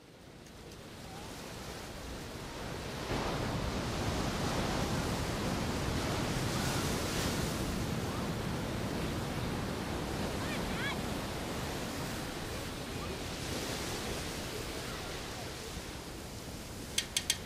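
Surf washing onto a beach: a steady rush of small breaking waves that fades in over the first few seconds and swells now and then as a wave breaks.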